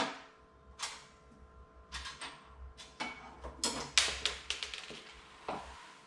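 Metal deadbolt parts clicking and knocking as they are handled and fitted: a dozen or so sharp clicks with short quiet gaps, bunched closest together about three and a half to four and a half seconds in.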